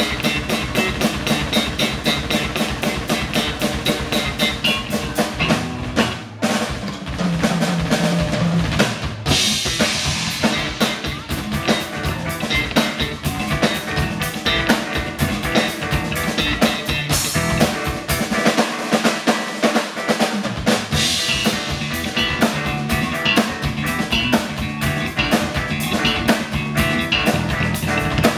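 Live band with a Pearl acoustic drum kit to the fore, played busily with fast snare and tom strokes, bass drum and cymbals. The low end drops out for about two seconds roughly two-thirds of the way through.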